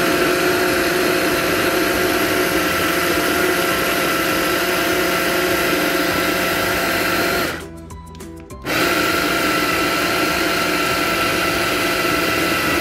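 Electric food chopper running at full speed, its blades chopping raw mutton mince with onion, coriander and spices. A steady motor whine cuts off for about a second around two-thirds of the way through, then starts again.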